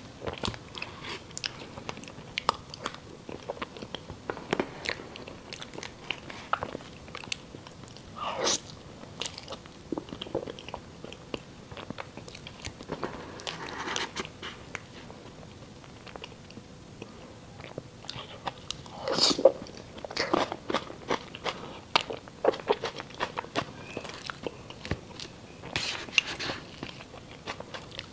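Close-miked eating sounds from soft cream layer cake: wet chewing and lip smacks, with short clicks of a metal fork cutting into the cake on the plate.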